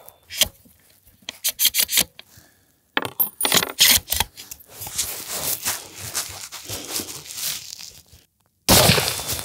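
Wilson Combat NULA Model 20 bolt-action rifle in .308 Winchester: the echo of a shot fades, then metal clicks and clinks as the bolt is cycled and the rifle handled. A second shot goes off near the end, the loudest sound.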